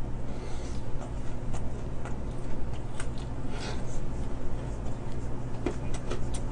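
Chewing crispy fried chicken close to the microphone: scattered small crunches and clicks over a steady low hum.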